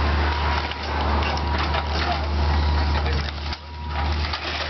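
Building demolition: wood and debris being crushed and splintered, a dense run of cracks and crunches over a steady low engine rumble.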